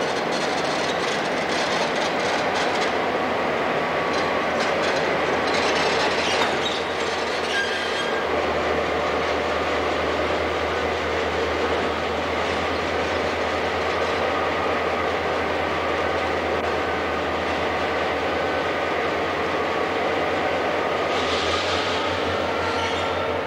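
Algoma Central diesel locomotive running as it rolls slowly through an engine house: steady engine noise with a low hum that comes in about eight seconds in.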